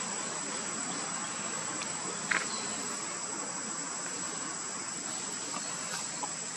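A chorus of insects chirring steadily at a high pitch, with one short sharp tick a little over two seconds in.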